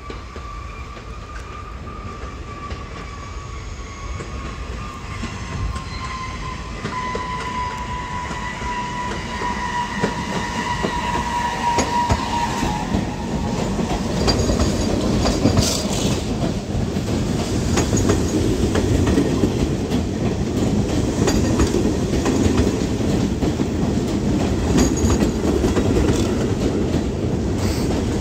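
An R68 subway train approaching and rolling past, its sound growing steadily louder. For the first half a high whine slowly falls in pitch and fades. Then the cars pass close with a heavy rumble and quick clicks of the wheels over the rail joints.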